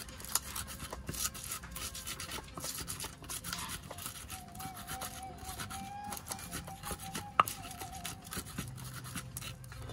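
Pestle grinding and crushing chillies with salt in a mortar (coet and ulekan) for sambal goang: irregular scraping, rubbing and tapping strokes, with one sharper knock about seven seconds in.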